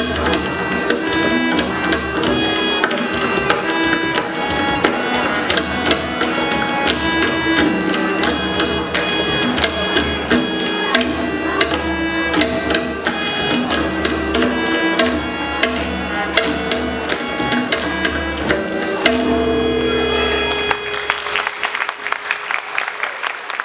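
Several tabla played together in a fast, even rhythm over a harmonium's repeating melody, ending about 21 seconds in with a final held harmonium note. Audience applause follows near the end.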